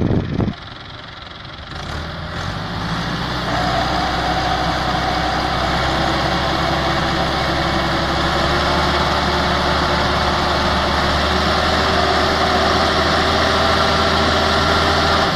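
Massey Ferguson 375 tractor's diesel engine revving up about two seconds in and held at high revs under heavy load. The tractor is straining to pull a loaded trolley out of soft sand while its rear wheels spin.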